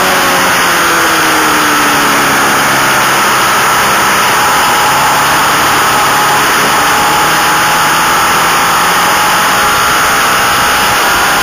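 Onboard sound of a racing motorcycle engine at speed, with heavy wind rush over it. The engine note falls over the first few seconds as the bike slows into a corner, then climbs again near the end as it accelerates out.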